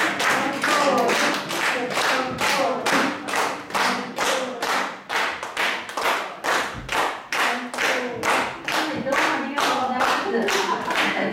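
Audience clapping together in a steady rhythm, about three claps a second, with voices heard underneath.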